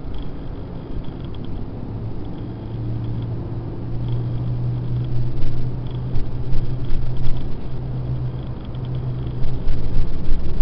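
Low, steady droning hum that swells about two seconds in, over a rumbling background, with sharp crackles in the second half.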